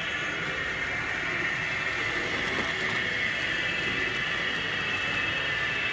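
Märklin H0 model freight train running on the layout's track, its wheels and motor making a steady whirr that grows slowly louder as the Vossloh G 2000 diesel locomotive approaches.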